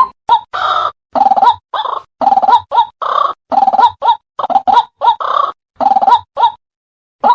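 White-breasted waterhen calling: short rising notes alternate with longer, harsher croaks, about two calls a second, with a brief pause near the end before the calling resumes.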